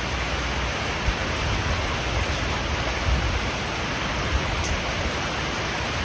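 Heavy rain with flood water rushing: a steady, even hiss of falling and running water, with a few brief low thumps.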